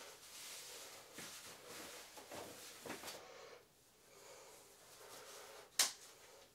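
Rustling of fabric as clothes are taken off and put on, in soft uneven swells, with one sharp click near the end.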